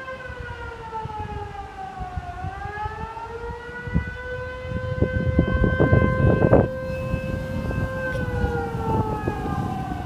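Alstom X'Trapolis 100 electric train pulling into the station, its traction inverters whining in a stack of tones that slide down, climb back, hold steady and slide down again as it slows. Wheels clatter over the rails, loudest as it passes about halfway through.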